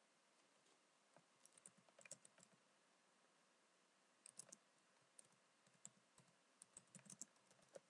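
Faint typing on a computer keyboard: scattered key clicks in short, irregular runs.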